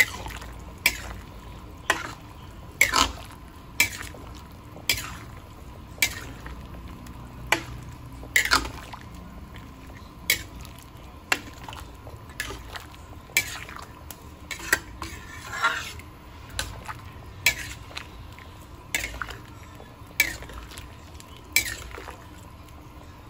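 A ladle stirring soup in a metal pan, knocking against the side of the pan about once a second, with some sloshing of the liquid.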